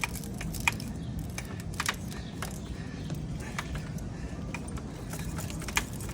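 Steel cable of a Kryptonite bike lock being cut with bolt cutters: individual wire strands snap in irregular sharp metallic clicks as the cable is slowly worked apart. A steady low street rumble runs underneath.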